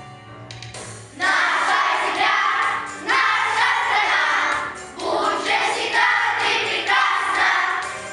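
A group of children singing together in unison, coming in about a second in after a short pause and going on in phrases of about two seconds each.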